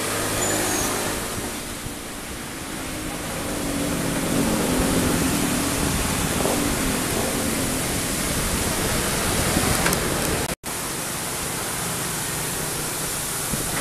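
Komatsu long-arm excavator's diesel engine running under working load, its pitch shifting as it digs, under a steady rushing noise. The sound cuts out for an instant about ten and a half seconds in.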